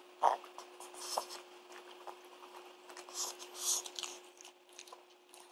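Small dog eating from a bowl: a few quiet clicks of teeth and tongue in the first half, then two short breathy snuffles a little past the middle, the pig-like snorting it makes while eating.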